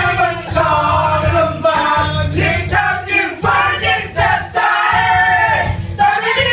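Karaoke: a voice singing into a microphone over a recorded backing track, both played loud through the speakers.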